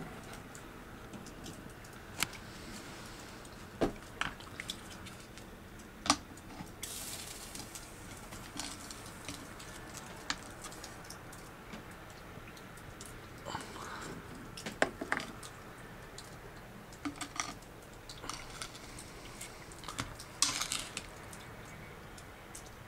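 Metal tongs clicking and clanking against a smoker's wire rack and a plate as raw chicken is lifted onto the grate: scattered sharp clacks and taps, in clusters around two, four, six, fifteen and twenty seconds in.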